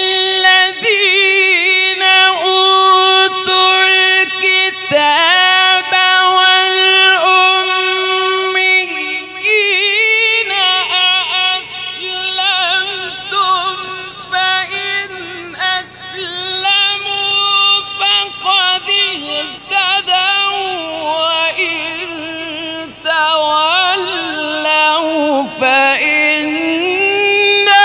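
A man reciting the Quran in the melodic, drawn-out mujawwad style into a microphone. There is one long held note for about the first third, then phrases rising and falling with quick quivering ornaments, and short breaks for breath between them.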